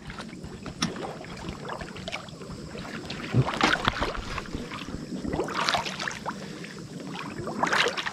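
Water splashing and sloshing as people wade through a shallow creek, with three stronger surges of sloshing about two seconds apart near the end.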